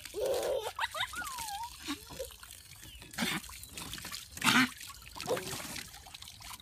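Garden hose water running and trickling, with two short splashy bursts about three and four and a half seconds in. A toddler's short babbles and squeals come in the first two seconds.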